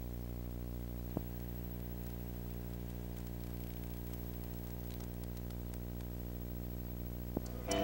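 Steady low electrical hum with faint hiss from the recording chain, with no music or applause, and a single click about a second in and another near the end.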